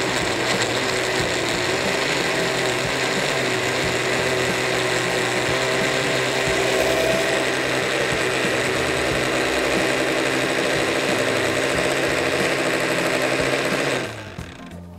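Small countertop blender motor running steadily, puréeing cooked carrots and potatoes with oil and water; it switches off suddenly near the end.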